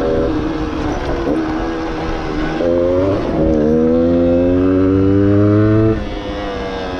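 A stock 1994 Yamaha DT125R's 125 cc two-stroke single-cylinder engine is being ridden. After a short break in the engine note about three seconds in, it accelerates, climbing in pitch and getting louder. It drops away suddenly off the throttle about six seconds in.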